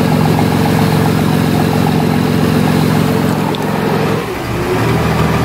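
Motorboat engine running steadily under way, a low hum over the hiss of water rushing past the hull and wake; the engine note dips and settles to a different pitch about four seconds in.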